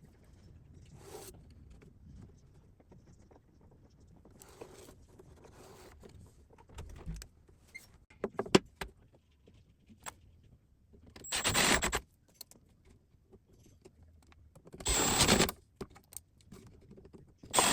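A cordless drill/driver runs in three short, even bursts, driving screws into the cabinet, with scattered knocks and clicks of handling the metal slide parts before them.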